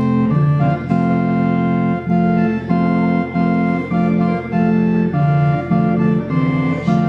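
Organ playing in held chords under a moving melody, the notes changing about once a second.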